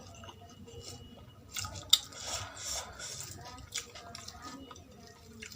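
Close-up wet chewing and mouth smacks of someone eating poori with potato curry, with a sharp click a little under two seconds in.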